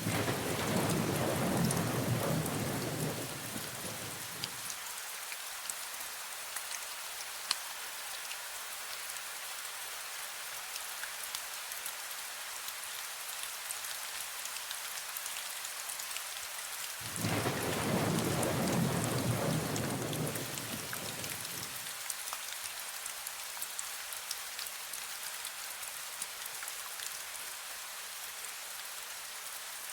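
Steady rain falling, with two low rolls of thunder: one right at the start lasting about four seconds, and another about seventeen seconds in lasting about five seconds.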